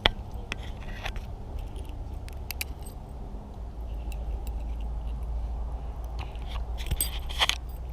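Scattered small clicks and light rattles, with a sharp knock at the very start and a cluster of clicks near the end, over a steady low rumble.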